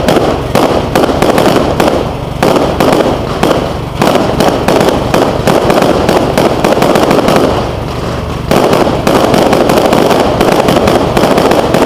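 Aerial fireworks bursting overhead in a loud, near-continuous barrage of bangs and crackling, easing briefly a few times (about two, four and eight seconds in) before picking up again.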